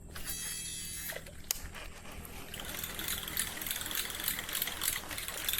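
Casting reel: a brief high whirr as line pays out on the cast, then the reel being cranked to retrieve the lure, a rapid fine ticking that grows gradually louder.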